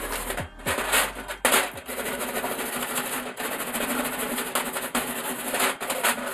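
Hand wire brush scrubbing steel round-bar scrolls in quick, irregular strokes, a dense scratchy rasp, with background music underneath.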